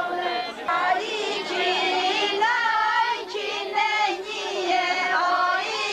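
Several voices, women's or girls', singing a traditional Albanian folk song together, with long held notes that bend up and down.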